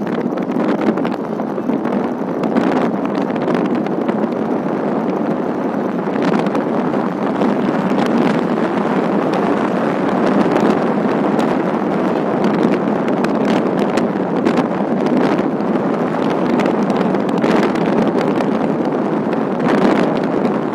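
Steady rushing of wind on the microphone mixed with road noise from a moving vehicle, with a few light knocks scattered through it.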